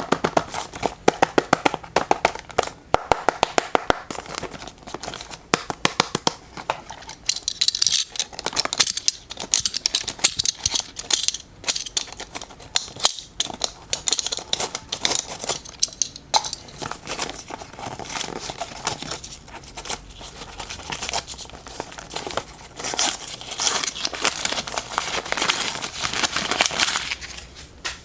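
Packaging being handled and torn open: a dense run of crinkling, tearing and clicking.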